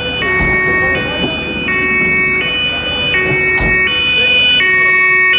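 German fire engine's two-tone Martinshorn siren, sounding continuously on an emergency run and switching between a high and a low note a little faster than once a second.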